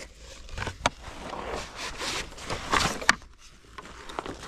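Rustling and scraping as a folding plastic camp toilet frame and its cardboard edge guards are handled and pulled from a canvas bag, with a couple of sharp plastic clicks, one about a second in and one about three seconds in.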